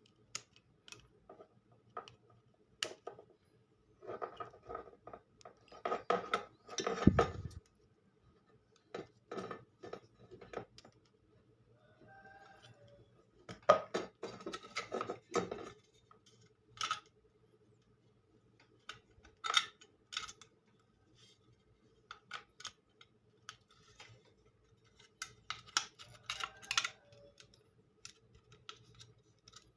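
Small hard clicks and clinks in scattered clusters as carbon discs are handled and stacked into a sewing machine foot pedal's carbon-pile speed control, topping up carbons that had worn down and left the pedal not working.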